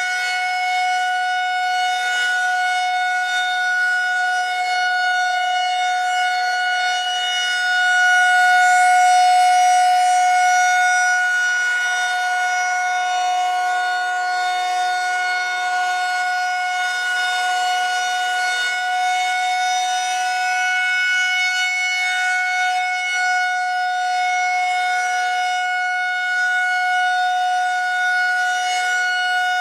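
Federal Signal 2001-130 rotating electromechanical outdoor warning siren sounding its monthly test at full speed: one steady tone with strong overtones, holding its pitch. It swells louder about eight seconds in and then eases back.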